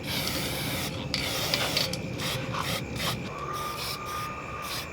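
Aerosol spray-paint cans hissing in bursts: a long spray over the first couple of seconds, then shorter ones.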